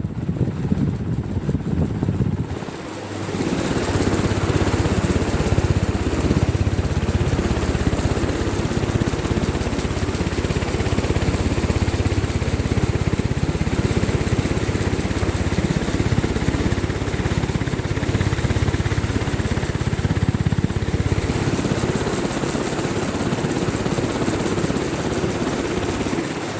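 Atomberg BLDC ceiling fan running, its airflow rushing over the microphone, with a thin high-pitched whine throughout: the fan noise the owner complains of. It dips briefly and then gets louder about three seconds in.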